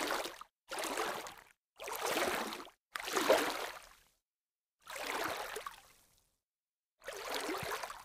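Water splashing slowly, six separate splashes each fading out over about a second, with brief silences between them and a longer pause about two-thirds of the way through.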